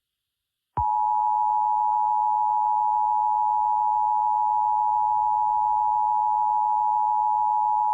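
Emergency Alert System attention signal: two steady tones just under 1 kHz sounding together. It starts about a second in and holds without change for about eight seconds.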